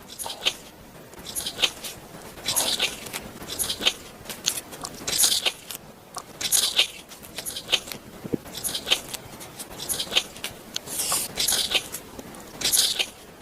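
Close-up mouth sounds of biting into and chewing a large onigiri rice ball, in a string of short crackly bursts about a second or so apart.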